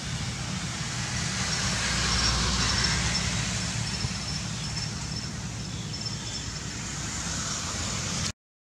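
Steady road-traffic or vehicle rumble and hiss, with a faint, broken high-pitched tone above it. The sound cuts out abruptly for about half a second near the end.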